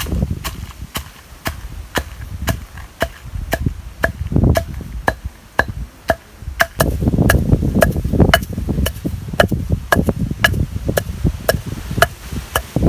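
Pestle pounding in an ural mortar at a steady rhythm of about two strikes a second, each a sharp knock with a short ring: roasted dry chillies being pounded for sesame podi.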